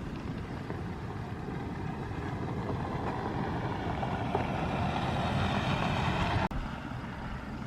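A car driving nearby, its engine and tyre noise building steadily louder, then cutting off suddenly about six and a half seconds in.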